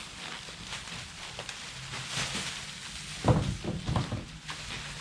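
Packing material and parts being handled out of a box: a short rustle about two seconds in, then two dull thumps a little over three seconds in, with small clicks and knocks in between.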